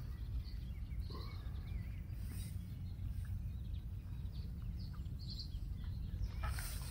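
Outdoor lakeside ambience: a low steady rumble with faint, scattered bird chirps.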